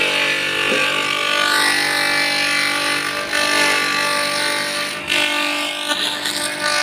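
Homemade motor-driven chopper-grater machine running steadily under load: a motor hum with a shredding noise as taro leaves and stalks are fed in and chopped.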